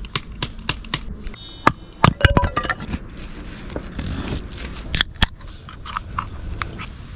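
A string of sharp clicks and knocks with light scraping between them, the loudest knocks about two and five seconds in.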